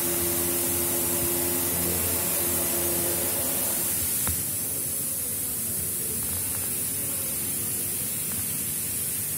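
Steady workshop background noise: a hiss with a machine hum. A single click about four seconds in, after which the hum drops away and the hiss goes on.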